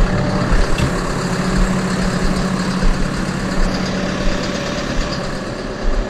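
Tractor engine idling steadily with a low, even hum, with a few irregular low thumps over it.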